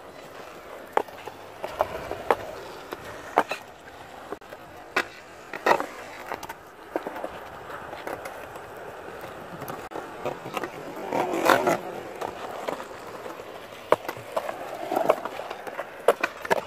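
Skateboard wheels rolling on concrete, broken by a dozen or so sharp wooden clacks at irregular intervals from tail pops and the board landing. A louder, rougher stretch of board noise comes about eleven seconds in.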